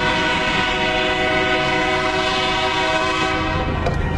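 Train horn blowing one long, loud blast, a steady chord of several notes held together, that cuts off near the end.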